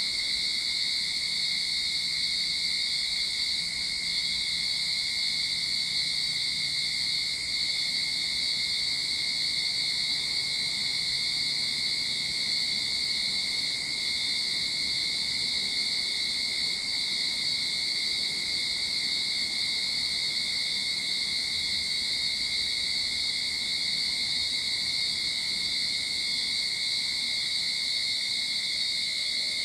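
Cicadas singing in a steady, unbroken high-pitched drone.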